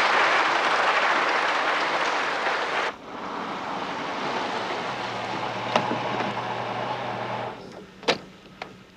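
A large hall audience applauding, cut off abruptly about three seconds in. Then a car's steady low hum with a few clicks of its door, the sharpest a knock shortly before the end.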